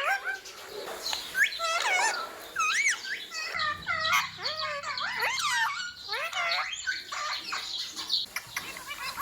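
Ringneck parakeet chattering in a quick run of short squawks and whistled chirps that slide up and down in pitch.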